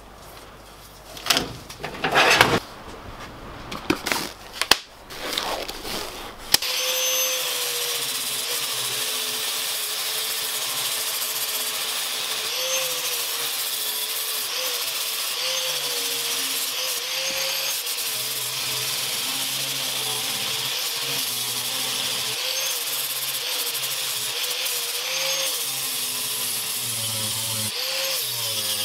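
A few knocks and clatters of flap discs being handled at a metal drawer cabinet. About six seconds in, an angle grinder starts suddenly and runs steadily while its flap disc grinds the steel axe head, its pitch dipping slightly now and then.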